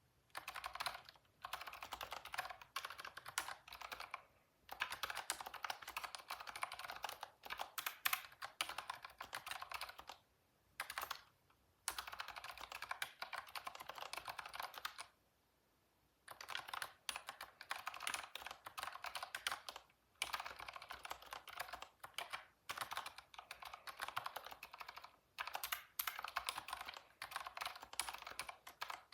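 Typing on a computer keyboard: quick runs of key clicks in bursts of a few seconds, with short pauses between them, the longest about a second long around the middle.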